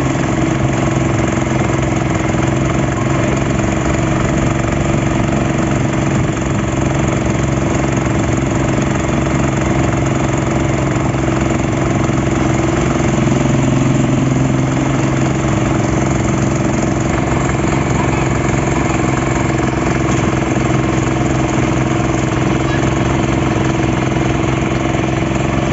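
A small motorboat's engine running steadily while the boat is under way, at an even pitch.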